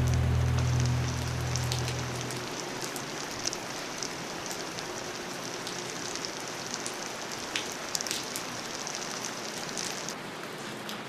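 A low hum fades out about two seconds in, leaving a steady hiss with scattered faint ticks.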